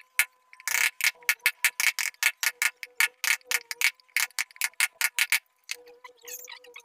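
A wooden mallet tapping a wood-carving chisel into a door panel in quick, sharp, even blows of about five a second, with a short pause at the start; the blows stop near the end.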